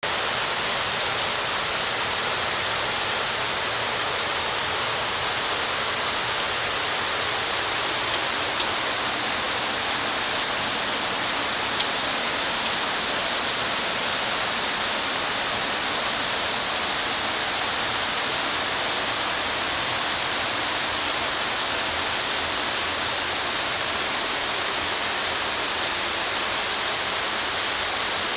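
Heavy tropical monsoon rain pouring steadily, a dense, even hiss.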